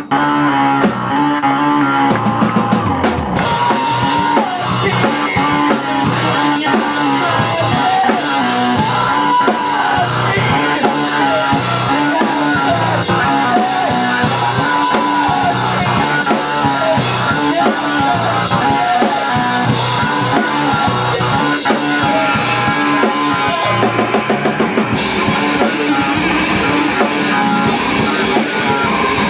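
A rock band playing live and loud, with drum kit and guitar.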